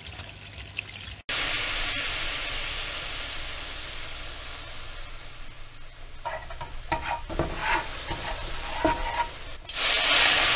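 Sizzling like food frying in hot oil, set going by a hard cut about a second in. It is a steady hiss that slowly fades, with a few short higher tones near the end and then a louder surge of sizzle.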